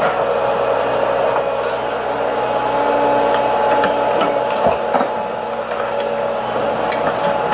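Heavy diesel machinery running steadily, with a constant high whine and a couple of knocks about five seconds in.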